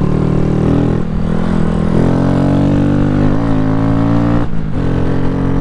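Honda Grom's 125 cc single-cylinder four-stroke engine running under throttle on a dirt track. The revs climb steadily for a couple of seconds, then drop sharply about four and a half seconds in and carry on lower and steady.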